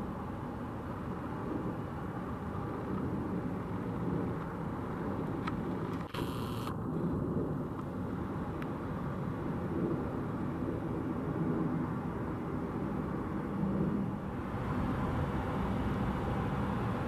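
Steady low rumble of a jet airliner's engines, here the Airbus A220-100's geared turbofans. About six seconds in there is a brief click and a short hiss.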